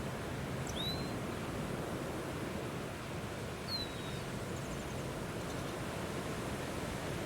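Steady, strong wind noise. Two short high chirps cut through it, one about a second in and another just before the four-second mark.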